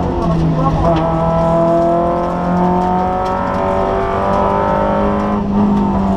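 Kia Picanto rally car's engine heard from inside the cockpit, pulling under acceleration with its pitch climbing slowly, then a brief dip near the end.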